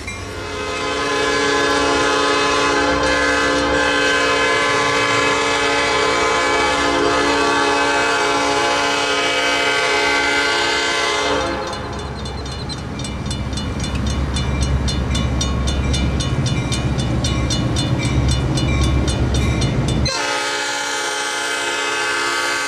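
A diesel locomotive's air horn sounds a long chord for about eleven seconds. Then a mechanical railroad crossing bell rings in rapid, even strokes, about four a second, over a low rumble, until a train horn cuts in near the end.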